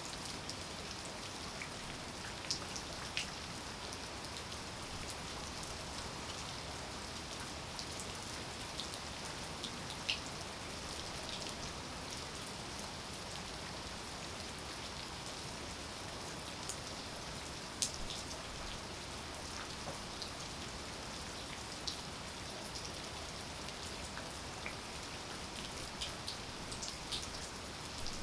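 Steady rain falling, an even hiss with individual drops landing sharply every few seconds.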